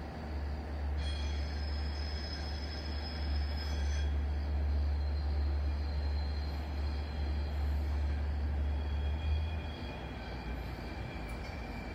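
A train of passenger coaches running slowly over station points, with a faint high wheel squeal over a steady low hum that fades out near the end.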